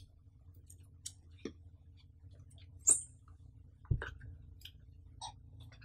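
Hands handling a cardboard retail box, with scattered light taps and clicks of fingers on the cardboard. About three seconds in there is a short scrape, and about a second later a dull thump as the box comes down onto the table. A faint steady low hum lies underneath.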